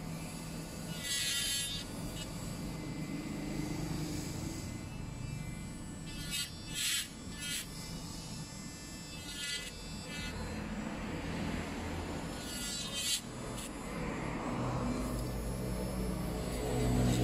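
Electric nail drill running as it files down acrylic nails, over a steady low rumble. A few brief high-pitched whines sound about a second in, twice in quick succession in the middle, and again near the end.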